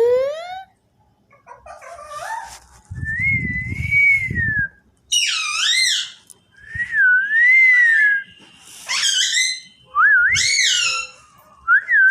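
Parrot whistling: a string of about seven short whistled phrases that swoop up and down in pitch, some clear and some with a harsher, fuller edge. A low rumble sits under one of the whistles a few seconds in.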